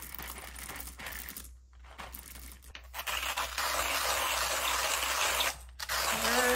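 Whole coffee beans rattling as they are poured into a hand coffee grinder. From about three seconds in, the grinder is cranked and the beans crunch steadily between the burrs.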